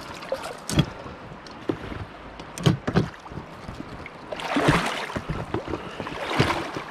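River water sloshing and splashing around a wader's legs and an inflatable float tube as he steps through the last of the shallows, with a few sharp knocks in the first three seconds and two louder washes of splashing in the second half.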